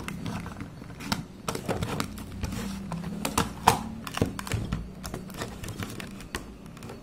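Irregular clicks and taps of plastic electronics-kit modules being handled and pressed into place on the base board, over a faint steady hum.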